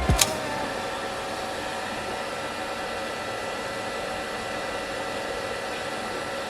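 Qidi X-Max enclosed 3D printer running: a steady whir of fans with a few faint, steady motor tones.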